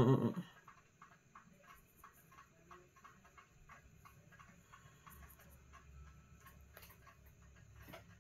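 A short hummed voice fades out about half a second in, then faint, irregular small clicks and ticks, several a second, in a quiet small room.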